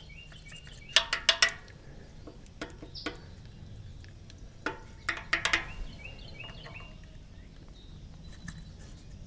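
Small metallic clicks in a few quick clusters as the rocker arms of a Caterpillar D3 dozer's four-cylinder diesel are worked by hand to check valve clearance. The exhaust valves being checked have a little play.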